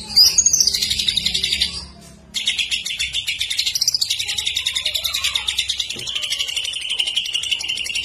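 Greater green leafbird (cucak ijo) singing a fast, continuous, high-pitched chattering song, with a short break about two seconds in. The song runs on like a lovebird's non-stop chatter, which it mimics.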